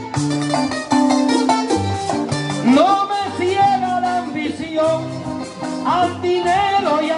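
Live Puerto Rican seis milonga instrumental interlude: acoustic guitars and cuatro play the chords over a bass line. About three seconds in, a sliding, bending lead melody joins over the strings.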